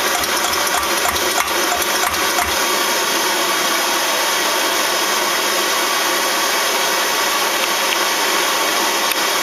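Primus paraffin stove's roarer burner running at full pressure: a loud, steady rushing noise of the vaporised paraffin flame. A few soft pump thumps in the first two or three seconds as the tank is brought back up to pressure.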